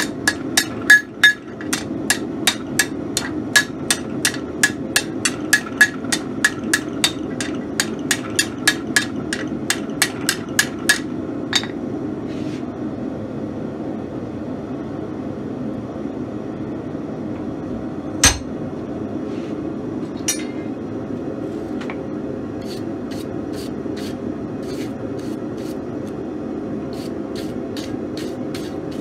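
Hand hammer striking a red-hot steel bar on an anvil, about two or three ringing blows a second, stopping about eleven seconds in; a few scattered metal knocks follow over a steady low roar. The hammering is typical of straightening a bar that hot stamping has warped.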